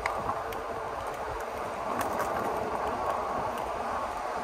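Steady rushing noise of a bike ride on a paved path, wind and tyre noise, with a few faint clicks.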